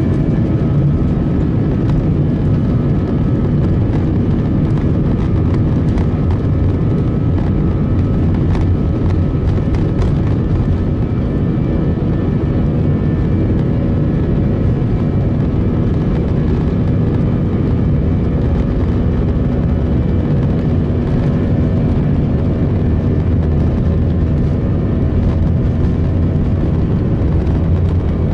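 Airbus A319's IAE V2522-A5 turbofan engines at takeoff thrust during the takeoff roll, heard from a cabin window seat beside the wing: a loud, steady roar with several steady whining tones over it. The low rumble of the wheels on the runway grows stronger near the end as the aircraft gathers speed.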